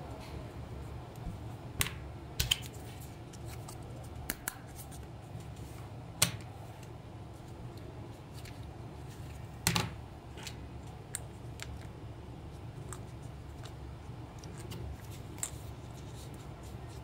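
Hard plastic parts of a toy remote-controller handset being handled: scattered light clicks and knocks at irregular intervals, over a low steady hum.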